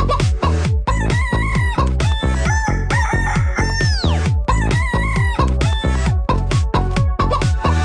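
Techno dance track built from sampled chicken clucks and crowing over a steady kick drum, with a long falling swoop about four seconds in.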